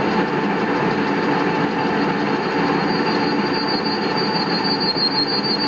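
Metal lathe running while its cutting tool faces off the end of a metal workpiece to make it flat, a steady machining noise; a thin high-pitched squeal comes in about three seconds in and holds.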